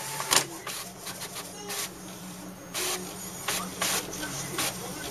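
HP inkjet all-in-one printer printing a page and feeding the sheet out: a series of short, sharp mechanical sweeps over a steady low hum.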